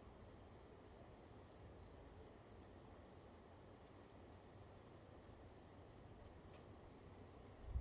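Faint, steady high-pitched trilling of crickets over a soft low rumble; a louder rumble of thunder begins just at the end.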